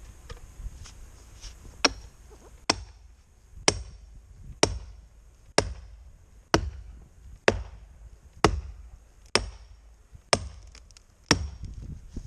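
Steel felling wedges being driven into a dead tree's felling cut with hard, evenly spaced blows of a maul. About eleven strikes come roughly one a second, starting about two seconds in, each with a brief ring.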